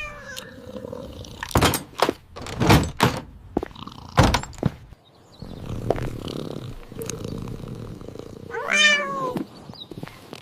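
Several dull thumps and knocks in the first half, then a cat meows once near the end, a single call falling in pitch.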